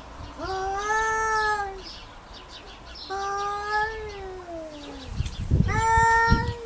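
Domestic cat yowling three times, each call long and drawn out, the second sliding down in pitch at its end: a territorial warning aimed at a rival cat. A low rumbling noise sits under the last call.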